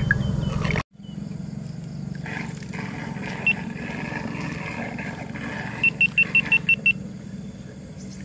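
A steady low motor hum, cut off for an instant about a second in and then going on quieter. Around the middle comes a quick run of about seven short high beeps, with a single beep a little earlier.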